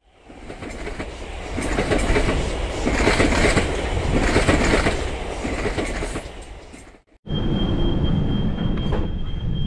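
An electric passenger train approaching on the rails, its running noise growing louder over the first few seconds. After a sudden cut about seven seconds in, a Copenhagen Metro train is heard running through a tunnel from the front of the train, with a steady high whine over the running noise.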